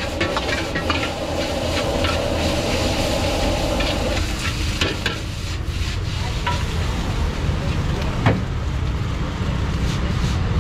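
Metal ladle scraping and clinking in a wok as fried rice sizzles over a gas wok burner, with the burner's steady low rumble underneath. About four seconds in the stirring stops as the wok is lifted and tossed, leaving the rumble with a few scattered clinks and one sharp clank near eight seconds.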